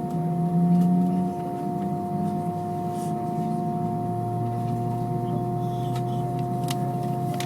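Steady cabin noise inside an Airbus A320: a rumble with several steady whining tones from the IAE V2500 engines and cabin air systems. A lower hum comes in about four seconds in.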